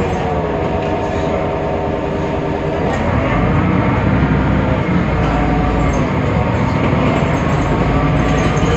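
A Temsa Avenue LF city bus with its DAF PR 228 diesel engine and ZF Ecolife automatic gearbox under way, giving a strange, out-of-the-ordinary whining drivetrain sound. The whine dips about three seconds in and then climbs steadily as the bus gathers speed.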